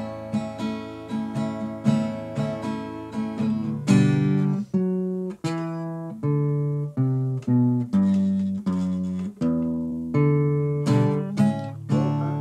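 Acoustic guitar played without singing: quick strummed chords, then a run of single plucked notes moving in pitch, then strumming again near the end.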